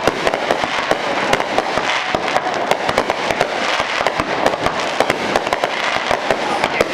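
Aerial fireworks bursting in a dense, continuous crackle of many sharp pops a second, with no letup.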